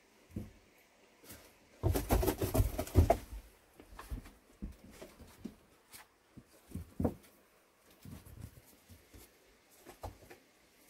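A burst of rustling and knocking about two seconds in, then scattered faint taps and creaks.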